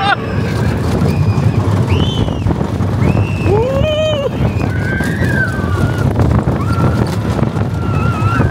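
Riders whooping and screaming several times on the Slinky Dog Dash roller coaster, over a steady rush of wind on the microphone as the train runs along the track.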